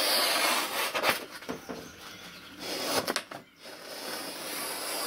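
Sakai Takayuki VG10 Damascus santoku slicing through a sheet of printer paper held up by one corner: a rustling, papery hiss with a couple of crisp ticks about one and three seconds in. The cut goes through without trouble, the sign of a sharp edge.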